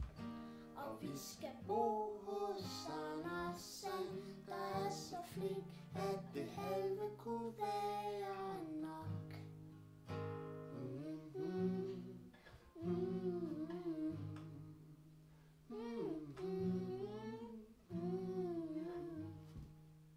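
Steel-string acoustic guitar, capoed, strummed as accompaniment to a child singing a song; the music dies away near the end.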